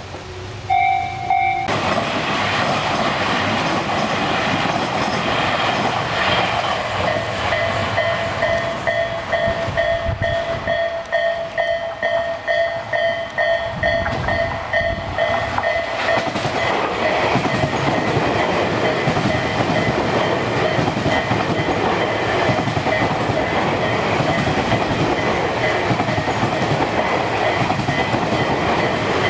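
A train passing over a level crossing, its wheels clattering over the rails most strongly about a third to half way through, with the crossing's warning bell ringing steadily throughout.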